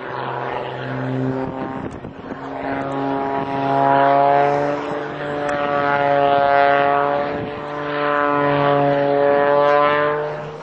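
Single-engine propeller aerobatic plane flying overhead, its engine drone swelling louder and fading back three times as it manoeuvres.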